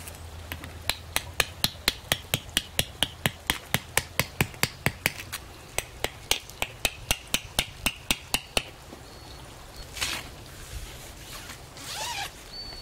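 Tent stake being hammered into the ground with quick, even strikes, about four a second, some with a short ring, stopping after about eight seconds. Near the end, tent fabric rustles twice as it is handled.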